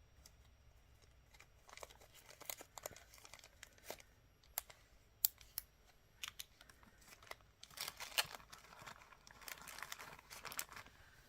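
Packaging crinkling and rustling as a strand of beads is handled and put away: irregular small crackles and clicks that grow busier near the end.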